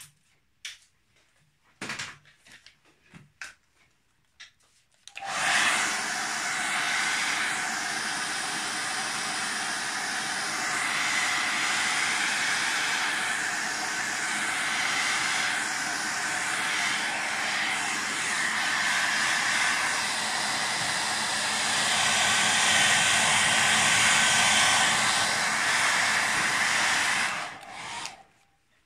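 A few faint clicks and handling knocks, then a handheld hair dryer switches on about five seconds in. It runs steadily and loudly, blowing over wet acrylic paint to dry it, and switches off shortly before the end.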